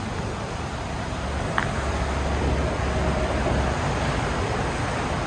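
Steady outdoor background noise with a low rumble that swells for a couple of seconds in the middle, and one brief click.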